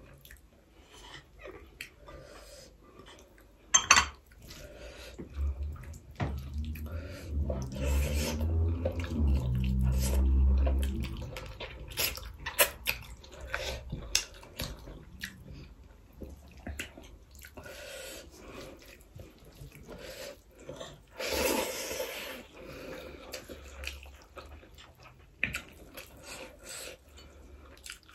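Close-up food handling at a meal: curry and lentil soup poured from glass bowls onto a plate of rice and mixed in by hand, with wet squelching and the knock of glass dishes. There is one sharp knock about four seconds in.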